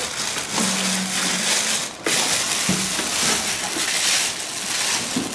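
Thin plastic protective bag crinkling and rustling loudly as it is pulled off a kitchen machine, with a short break about two seconds in.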